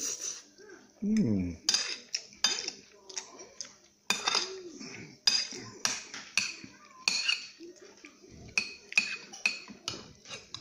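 Metal spoon scraping and clinking against a ceramic plate while scooping rice, with repeated sharp clinks that ring briefly. About a second in, a short low voice sound falls in pitch.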